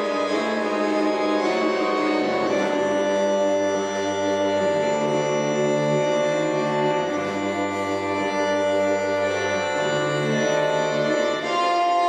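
Music of long, held chords over a slow-moving bass line, the chords changing every second or two.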